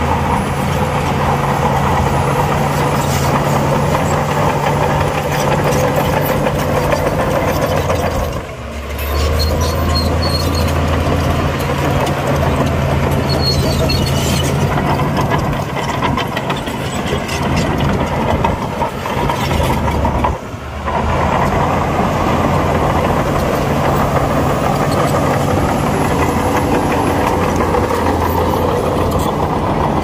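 Heavy diesel earthmoving machine engine running hard, with a steady low drone; the engine note dips briefly twice, about a third and two-thirds of the way through.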